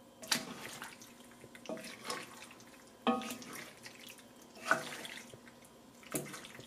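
Penne and meatballs in a thick, creamy sauce being stirred in a pan, with wet squelching and the spoon knocking and scraping against the pan about six times.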